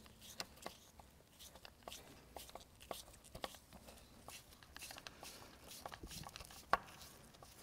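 Faint, irregular clicks and scrapes of a seal-puller screw being turned by hand into a small drilled hole in the old rear crankshaft oil seal, with one sharper click near the end.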